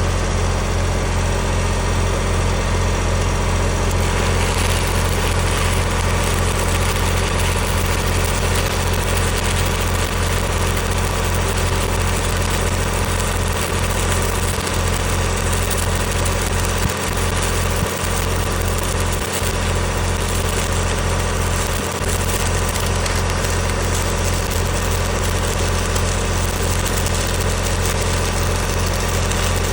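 An engine-driven welding generator runs steadily at a constant speed under a stick (SMAW) weld. A hissing crackle from the burning electrode's arc lies over the engine and grows stronger about four seconds in.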